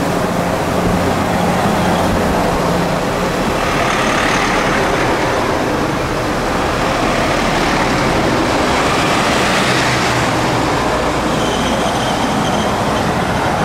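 Police convoy vehicles passing close by: Mercedes Sprinter vans, then a Skoda Superb estate and a BMW X5, their engine and tyre noise swelling twice as they go by, with no sirens.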